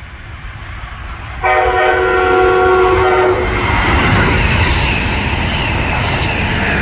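Amtrak Siemens ACS-64 electric locomotive sounding its horn, a chord that starts suddenly about a second and a half in and is held for about two seconds. The train then rushes past loudly, with a high whine falling in pitch as it goes by.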